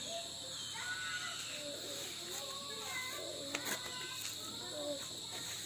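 Night insects chirring steadily in a high, even drone, with a sharp click about three and a half seconds in.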